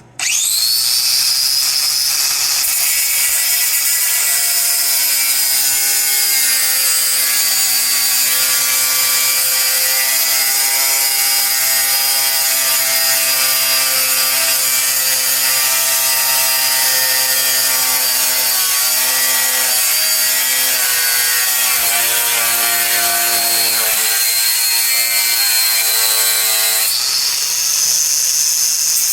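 Power cut-off grinder spinning up to a high whine and cutting through welded-on sheet metal, the pitch shifting as the wheel is loaded against the steel. Near the end the high whine steps up in pitch as the load eases.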